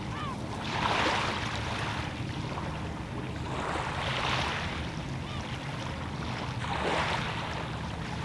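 Small waves washing onto a shingle beach: a soft hiss that swells and fades three times, about every three seconds, over a steady low rumble of wind on the microphone.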